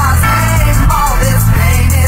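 Music from a dance remix: a heavy bass line that changes note every half second or so, with a wavering melody line above it.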